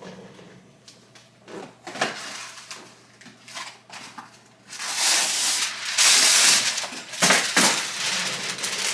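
Parchment paper being handled: a few light knocks and rustles, then loud crinkling and rustling of the paper for about two seconds, then a couple of sharper crinkles.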